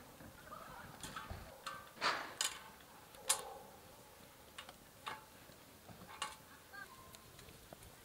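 Twigs burning in a small stainless-steel wood-burning camp stove, crackling with irregular sharp pops and snaps, the loudest about two and three and a half seconds in.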